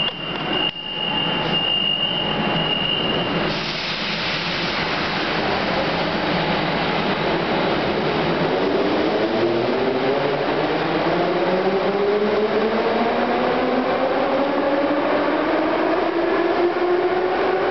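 A Kryukov-built metro train pulling out of the station. A steady high beep sounds for the first few seconds, then the cars run with a dense rumble and hiss. From about eight seconds in, the traction motors add several whines that climb in pitch as the train speeds up.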